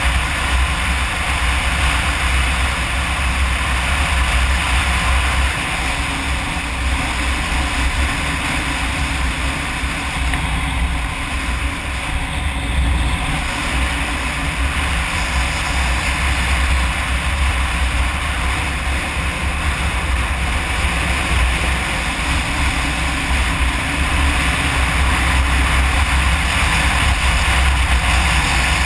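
Kawasaki KLR 650 single-cylinder dual-sport motorcycle riding at a steady road speed: the engine and tyres run under a heavy, low rush of wind noise on the bike-mounted microphone.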